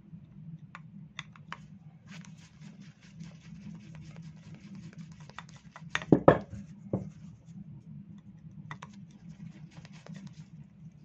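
A small screwdriver working a screw out of a 2-stroke scooter carburetor to free the float: faint scratching, rubbing and light clicks of metal parts being handled over a steady low hum. There are a couple of sharper knocks about six seconds in and another about a second later.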